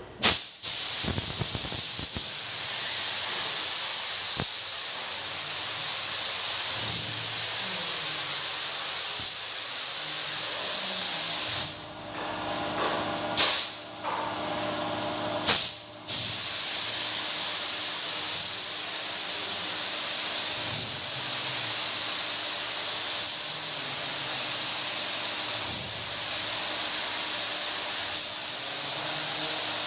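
Compressed-air spray gun hissing steadily as it sprays a lacquer top coat onto a wooden door. About twelve seconds in the spraying stops for a few seconds, broken by two short blasts, then resumes.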